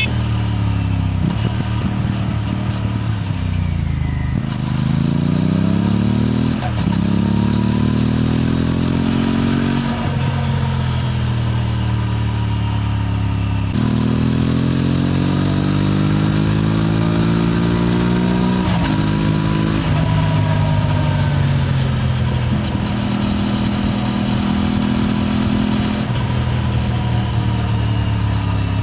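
Aprilia RS 457's parallel-twin engine and exhaust under way: the revs climb through the gears, with sudden drops in pitch at each upshift about six, ten and nineteen seconds in. Near the end it settles into a steady cruise.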